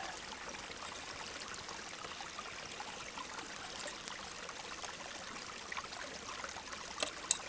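Steady rushing of a nearby stream, with two short sharp clicks near the end.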